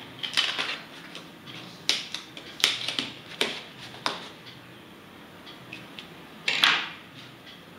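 Cardboard shipping box being opened by hand: about six short, sharp rips and scrapes of packing tape and cardboard, the loudest near the end.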